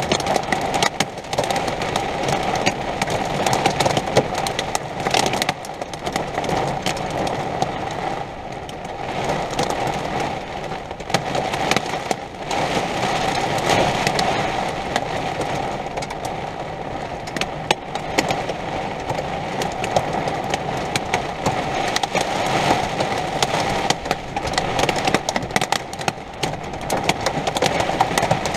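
Rain and hail pelting an RV's roof and walls in a storm: a dense, steady clatter of countless small hits with sharp cracks among them.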